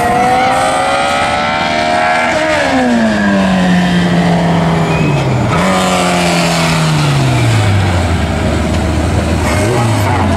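A competition car's engine in a slalom run, revving up under acceleration and then dropping sharply in pitch as the throttle is lifted about two seconds in. It rises again briefly and then falls to a low steady note near the end.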